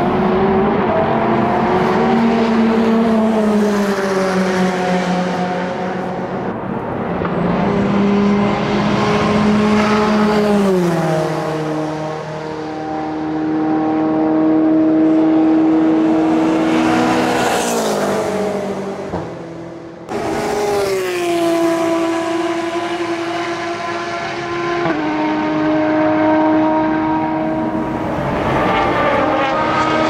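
GTE-class race cars running at speed, their engine notes held high and gliding down in pitch several times. About two-thirds of the way through, the sound breaks off sharply and a new car's engine comes in. Near the end two cars are heard together.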